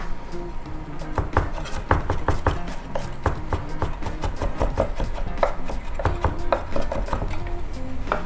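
Chef's knife rapidly chopping crushed garlic and kosher salt on a wooden cutting board, mincing it toward a paste: quick sharp knocks, several a second, starting about a second in.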